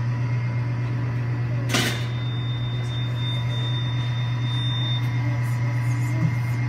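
Steady low machine hum, with a single sharp knock about two seconds in.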